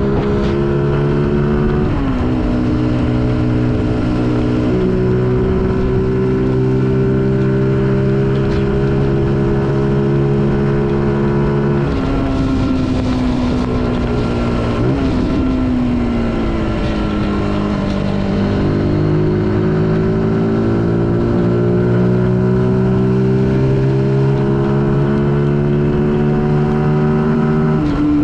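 Zontes U125 motorcycle engine running under way. The pitch drops suddenly about two seconds in and again near the middle, then climbs slowly through the second half as the bike speeds up, with wind noise on the microphone throughout.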